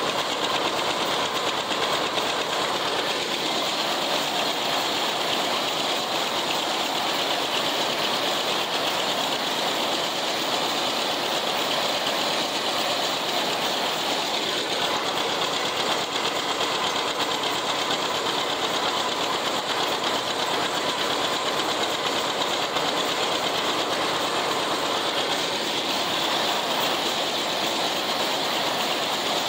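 John Deere 70's two-cylinder engine running steadily under load as it pulls a haybine, mixed with the clatter of the International 990 haybine's cutterbar and reel. It is loud and even, heard from the open operator's seat.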